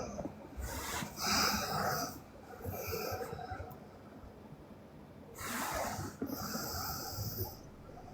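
A sleeping girl snoring: two long, noisy snoring breaths, the first about half a second in and the second a little past five seconds, with a weaker breath and a quieter pause between them.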